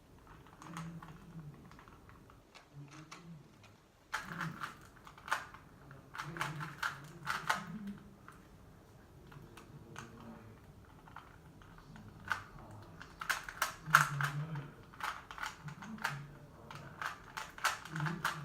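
A 3x3 Rubik's cube being turned rapidly by hand during a speed solve: quick clicking and clacking of the plastic layers. The clicks come in two long flurries with a sparser stretch between them.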